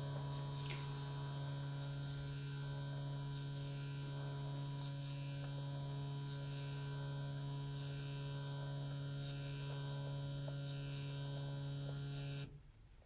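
A 1,000-step-per-revolution stepper motor driving a microscope linear stage through a one-centimetre move of 10,000 steps: a steady, even-pitched hum with a buzz of overtones that cuts off suddenly near the end as the move finishes.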